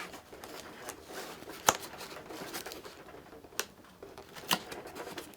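A blade slicing through the tape on a cardboard box, with cardboard scraping and rustling and three sharp knocks.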